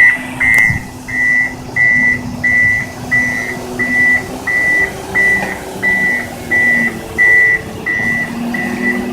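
Front-end loader's backup alarm beeping steadily at about one and a half beeps a second, the sign that the machine is reversing. Its diesel engine runs underneath.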